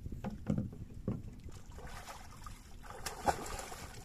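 A few knocks of a net pole against a wooden boat hull, then water splashing and sloshing as a person climbs from the water into the boat, with one loud knock on the hull a little after three seconds in.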